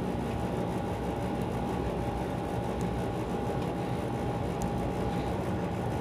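Steady mechanical drone with a thin, steady whine running through it. A few faint clicks come from a hex key turning in the AC's suction service valve.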